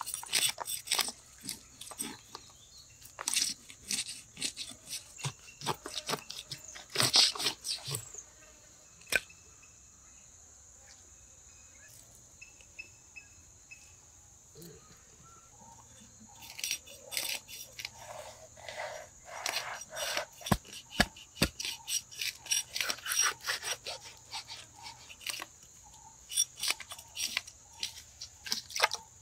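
Quick scraping and crunching strokes from hand work, in two busy bursts with a quiet stretch of several seconds between them.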